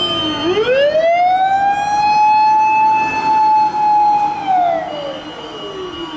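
Fire truck siren wailing in one slow cycle. It rises over about a second and a half, holds high for a few seconds, falls back down, and starts rising again at the end.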